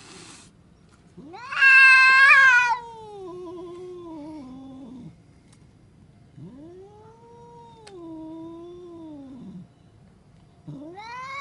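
Angry domestic cat yowling: three drawn-out, wavering yowls. The first is the loudest and highest, the second lower, and the third begins near the end.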